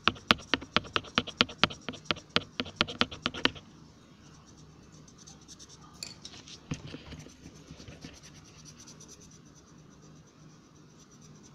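Fast back-and-forth scribbling of a coloring tool on paper, about five strokes a second. It goes much softer after about three and a half seconds.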